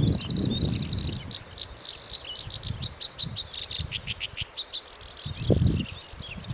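Black-browed reed warbler singing: a fast, continuous stream of short high notes, with a rapid run of quickly repeated notes in the middle. A low rumble comes and goes underneath at the start and again near the end.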